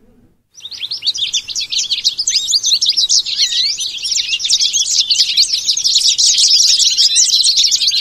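A flock of American goldfinches calling, many short chirps and twitters overlapping into a dense, continuous chatter that starts abruptly about half a second in.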